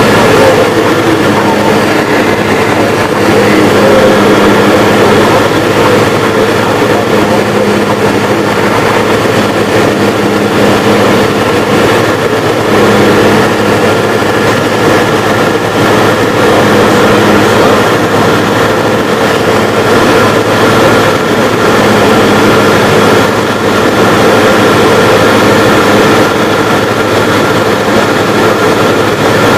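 Light aircraft's engine and propeller droning steadily, heard loud inside the cabin, with a few held tones over the noise and no change in power.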